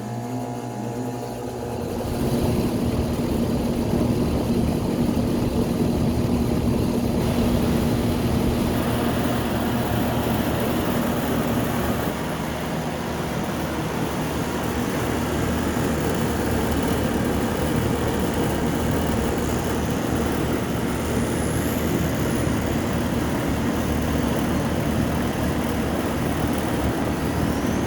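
Outdoor central A/C condensing unit running after its contactor was replaced: an electrical hum at first, then about two seconds in the condenser fan and compressor come up to a steady, even run.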